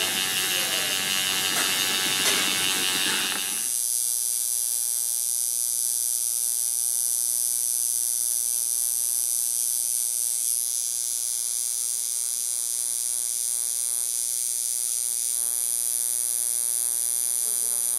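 Electric tattoo machine buzzing steadily as its needle works into the skin. About four seconds in the buzz changes abruptly to a thinner, cleaner, even hum.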